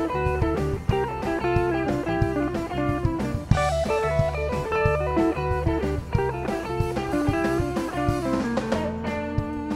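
Live blues band playing an instrumental passage: electric guitars over bass guitar and drums, with quick melodic runs on top. About nine seconds in the lead settles into held notes.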